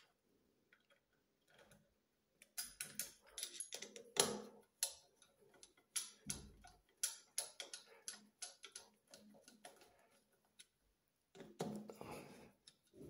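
Faint clicks and taps of a shower mixer cartridge being fitted by hand into a concealed valve's brass body: an uneven run of small ticks for several seconds, then a short cluster near the end.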